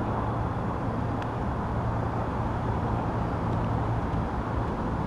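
Steady outdoor background rumble with a low, even hum under it; the hum fades out about four seconds in.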